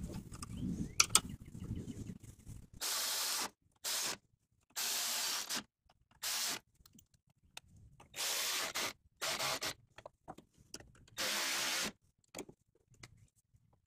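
Cordless 3/8-inch ratchet spinning a nut at the radiator mounting bracket in about seven short bursts, each under a second and all at the same level. Before the first burst there are a couple of seconds of parts being handled, with rubbing and a few knocks.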